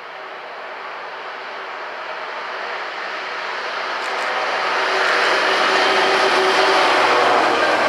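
Class 66 diesel locomotive's two-stroke EMD engine running under load as it approaches with a container freight train, growing louder over the first five seconds and then holding steady as it passes close.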